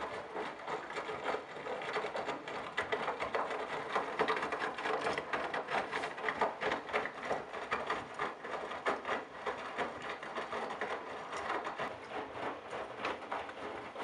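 Candy GrandO Simply-Fi front-loading washing machine tumbling a load of wet laundry: water sloshing and splashing in the drum as a dense, uneven patter. It starts abruptly as the drum begins to turn.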